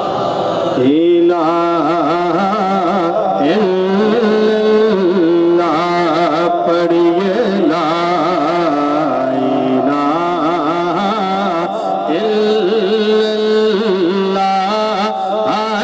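A man's voice singing a devotional naat through a microphone and PA system: long, ornamented melodic lines over a steady low drone, with short breaths between phrases.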